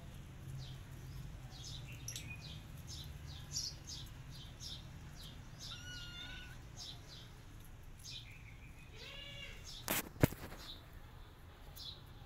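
Small birds chirping in short, high, repeated calls throughout, with two sharp clicks close together about ten seconds in.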